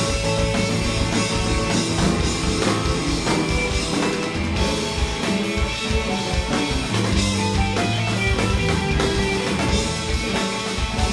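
Live rock band playing an instrumental passage: electric guitar and bass over a steady drum kit beat.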